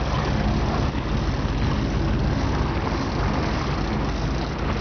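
Sportfishing boat's engine running steadily underway, a low drone under the rush of water from the wake.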